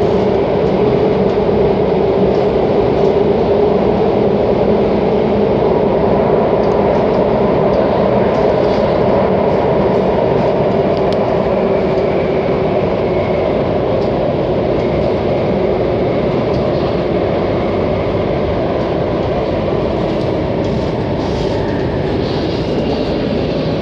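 C751C metro train running underground, heard from inside the car: continuous running noise with a steady hum, easing slightly over the last several seconds.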